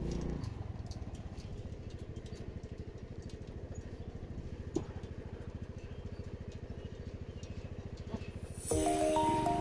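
Motorcycle engine running steadily, with a rapid, even beat of firing pulses. Background music comes in near the end.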